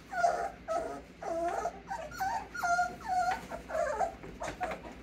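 Young mini Bernedoodle puppies whining and whimpering, a string of short high-pitched cries about every half second, some rising or falling in pitch.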